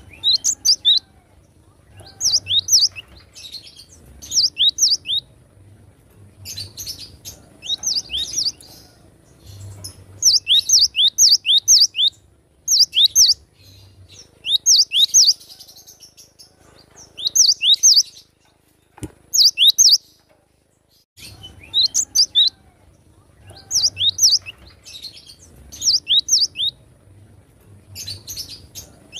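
Cinereous tit (gelatik batu) singing: short phrases of three to five quick, sharp whistled notes, repeated every second or two with brief pauses between.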